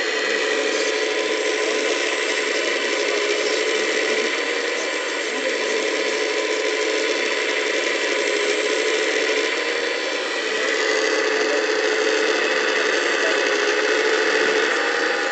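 Hydraulic pump and drive of a 1:14.5 scale RC CAT 345D LME excavator whining steadily with a gear-like rattle as it digs and swings its boom and bucket; the whine eases briefly about five and ten seconds in.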